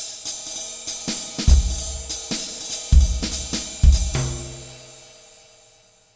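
Short closing music sting with drums and cymbals: a quick run of hits with three heavy bass-drum thumps, ending on a final crash and a held chord that fades out.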